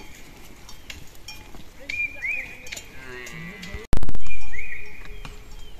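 Livestock bleating in short calls, with repeated short high chirps. About four seconds in, a sudden loud rumbling burst fades away over a second or so.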